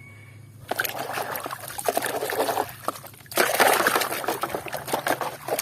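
Water running and splashing as a muddy plastic toy is rinsed clean. It starts about a second in and gets louder partway through.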